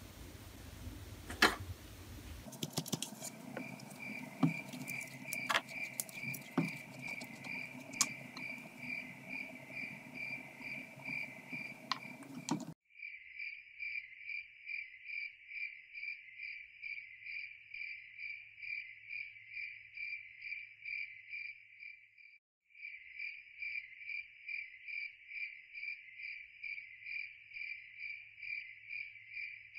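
A cricket chirping steadily, about three chirps a second. In the first half it sits over scattered handling clicks and a low hum; these drop away abruptly near the middle, leaving only the chirping, which breaks off briefly about two-thirds of the way through.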